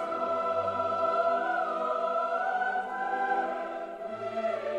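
Background music: a choir singing long held notes in a classical style.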